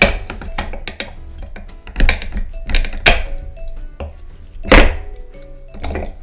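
Background music: a tune with held melody notes, a bass line and several sharp percussive hits.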